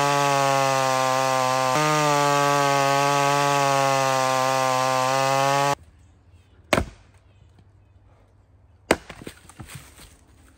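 Two-stroke chainsaw with a freshly hand-filed chain running at full throttle through a log: a loud, steady engine note that cuts off abruptly after about five and a half seconds. Then a sharp wooden knock about a second later, and another sharp knock followed by scattered lighter knocks near the end.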